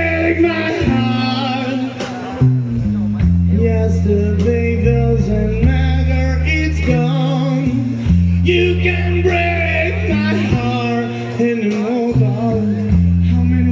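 Live rock band playing a song: singing over guitar, a low line of held bass notes that change every second or so, and drum hits.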